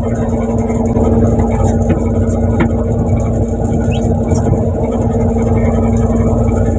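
Fishing boat's engine running steadily: a constant low rumble with a steady hum over it.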